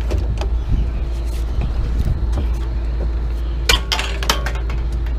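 Light aluminum scrap clanking as it is handled out of a pickup bed and dropped onto a scrap pile, with two sharp metal clinks about three and a half and four seconds in. A steady low rumble runs underneath.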